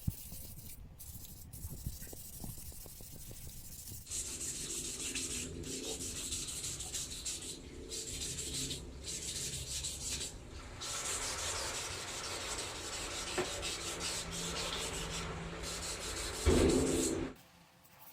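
Sanding a metal bike frame: a steady, hissy rubbing that starts about four seconds in and runs with a few short breaks. It rises briefly louder just before it stops abruptly near the end.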